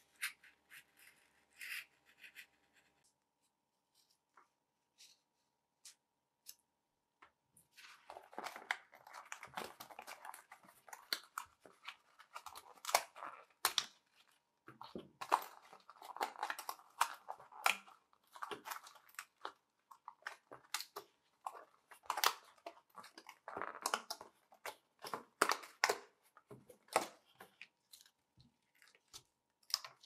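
A craft knife scratching as it cuts along the lines on a board for the first few seconds. After a quiet spell, a long run of crackling, tearing and snapping starts about 8 seconds in, as the cut-out pieces are worked loose and pulled free of the board.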